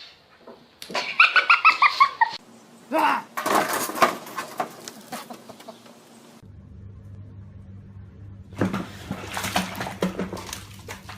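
An animal's rapid run of about a dozen short, high chirping calls, each dropping in pitch, followed by a single gliding call and clattering. About halfway through the sound changes to a steady low hum with scattered knocks and clatter.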